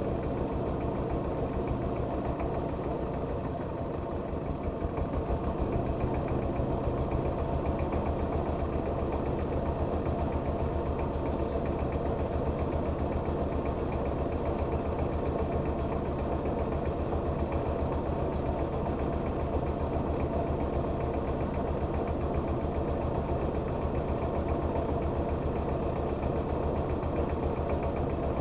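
Rice mill machine and its engine running steadily. The sound dips briefly about four seconds in, then picks up a little louder and runs on evenly.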